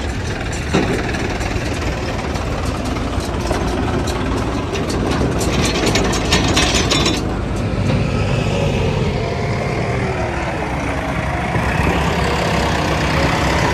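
Diesel tractor engines running under load as tractors pull trailers over a gravel track, with a run of gravel crunching and crackling under the tyres about six seconds in. Later the engine pitch rises and falls.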